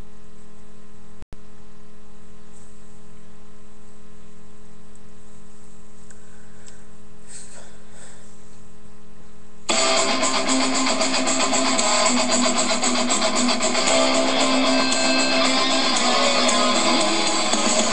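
Background music: a steady held sound with a brief dropout about a second in, then a loud guitar-driven song cuts in abruptly about ten seconds in.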